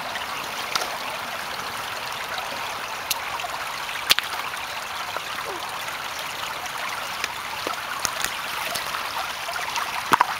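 Shallow creek babbling and trickling over stones, a steady rushing. A few sharp clicks or knocks break through, the loudest about four seconds in and a cluster near the end.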